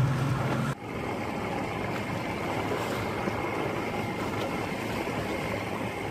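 Steady wind and water noise aboard a boat at sea, with a faint high steady whine. Under a second in, a deep boat-engine hum cuts off abruptly.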